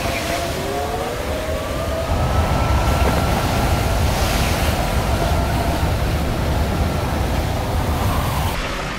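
Hurricane wind and driving rain blowing hard as a steady, loud noise, with a long whine that rises over the first two seconds, holds, and falls away near the end.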